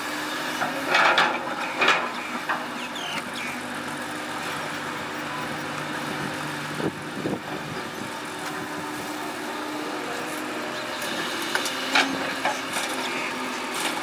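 Heavy construction machinery running steadily, with a few sharp knocks about a second in, near two seconds, around seven seconds and near twelve seconds.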